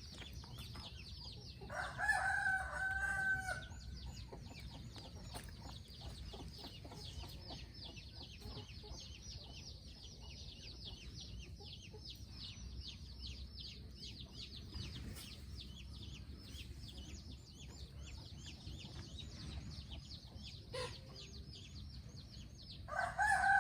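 A rooster crowing, a drawn-out pitched call about two seconds in and another starting near the end, over a continuous rapid high-pitched chirping.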